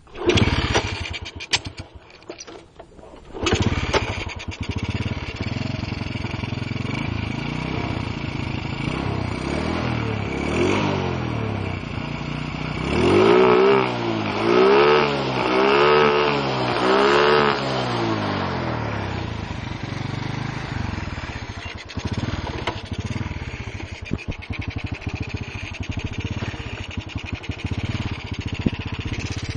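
Stock single-cylinder four-stroke engine of a Honda Astrea 800 underbone motorcycle starting about three seconds in and idling, then blipped four times in a row about halfway, each rev rising and falling, before settling back to idle.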